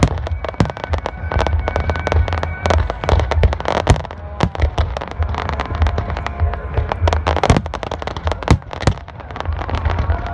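Fireworks display: aerial shells bursting in a dense, continuous series of sharp bangs and crackling pops over a steady low rumble.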